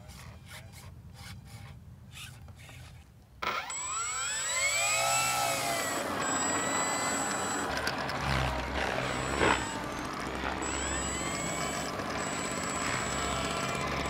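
Small quiet clicks and rubs of handling for about three seconds. Then the RC plane's brushless electric motor and propeller start suddenly, spin up to a high whine and back down, and keep running with the pitch rising and falling as the throttle is worked. A single sharp click comes about halfway through.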